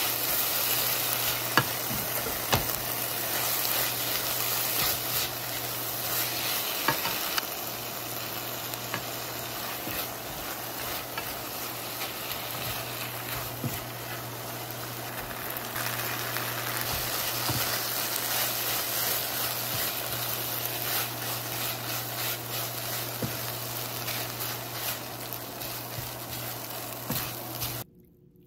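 Kimchi and diced ham sizzling in a nonstick wok while being stir-fried with a wooden spatula, with scattered scrapes and taps of the spatula against the pan over a steady low hum. The sizzle cuts off suddenly near the end.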